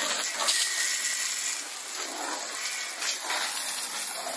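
Garden hose spray nozzle shooting a narrow jet of water that hisses steadily as it spatters across wet wooden deck boards.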